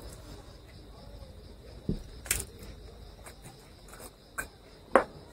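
Sealed whisky bottle's screw cap being twisted open, giving a few sharp clicks and cracks; the loudest come about two seconds in and again near the end. Crickets chirp steadily in the background.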